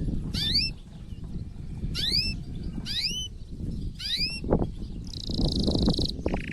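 Male canary singing in breeding condition: four bursts of quick rising, upswept notes, then a fast rolling trill about five seconds in that drops to a lower trill near the end. A low rumble with some knocks runs underneath.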